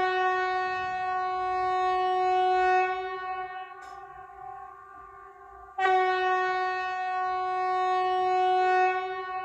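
Mock emergency-alert alarm tone: a steady, buzzy horn-like note rich in overtones, sounded twice. Each blast is loud for about three seconds, then carries on more quietly until the second one starts about six seconds in.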